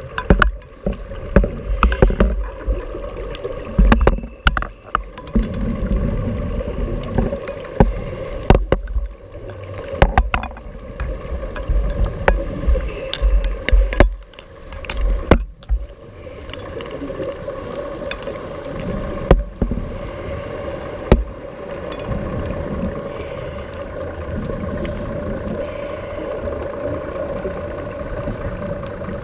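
Underwater sound of a scuba dive: a scuba diver's exhaled bubbles rumbling in bursts every few seconds, with scattered clicks and a steady hum underneath. The bursts thin out in the second half.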